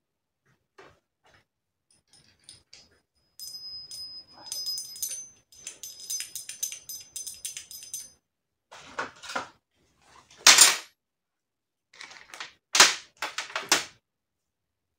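Small metal parts and tools being handled at the workbench: a clinking, ringing jingle for about four seconds, then several sharp knocks, the loudest a little past the middle.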